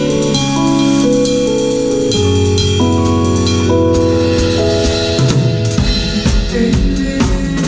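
Live band playing: held keyboard chords over a sustained bass line, then the drum kit comes in about five seconds in with kick, snare and cymbal hits.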